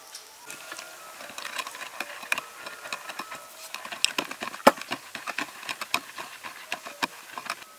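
Wooden pestle pounding and stirring a wet chili-garlic sauce in a wooden mortar: quick, irregular wet squelches and knocks of wood on wood, the sharpest knock a little past halfway.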